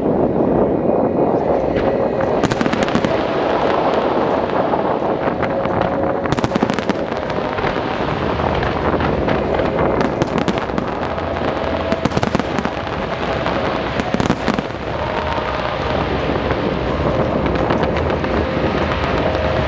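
Fireworks going off over a continuous din, with several clusters of sharp crackling bursts spaced a few seconds apart.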